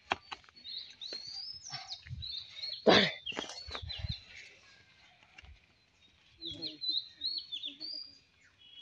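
Small birds chirping in short, quick rising and falling notes, in several runs, with a brief loud noise about three seconds in.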